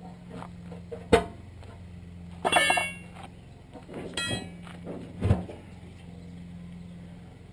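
A big tractor tire being worked off its steel wheel rim: a sharp knock about a second in, a scraping squeal of rubber and metal around two and a half seconds, another scrape, and a thud a little past five seconds, over a low steady hum.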